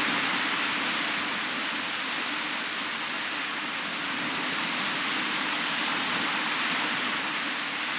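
Surf from small waves breaking and washing up a sandy beach: a steady hiss that swells and eases slowly.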